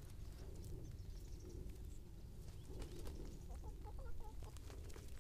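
Chickens softly clucking as they forage, a run of short calls about halfway through, over a low rumble.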